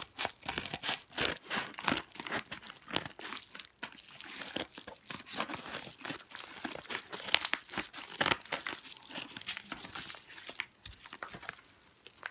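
Package wrapping crinkling and rustling in irregular handfuls of crackles as it is cut and pulled open.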